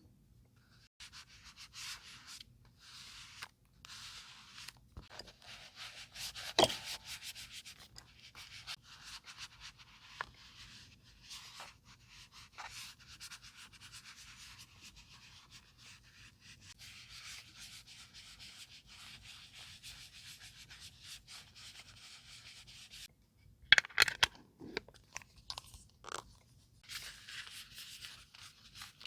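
Paper being rubbed and scraped by hand, a long soft scratchy rubbing with small ticks through it. A few sharper taps and clicks come near the end.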